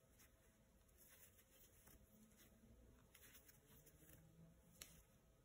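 Near silence, with faint soft rustles of yarn being drawn through by a metal crochet hook, and one small click near the end.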